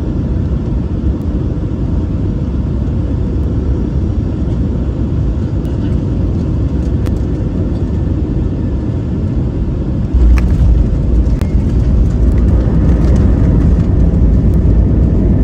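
Airbus A320-200 landing and rolling out on the runway: a loud, steady low rumble that rises suddenly about ten seconds in and stays louder.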